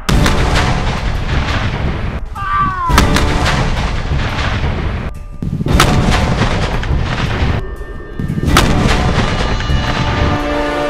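Muzzle-loading Civil War field cannons firing blank charges: four loud booms about three seconds apart, each trailing off in a long rolling echo.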